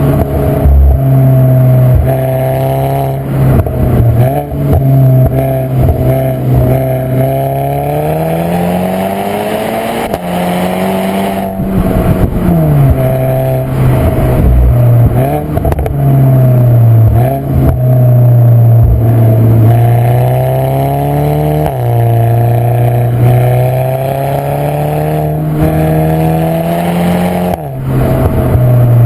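Volkswagen Scirocco R's turbocharged 2.0-litre four-cylinder engine running loud, its pitch slowly climbing and then dropping back several times, with short rough bursts of noise in between.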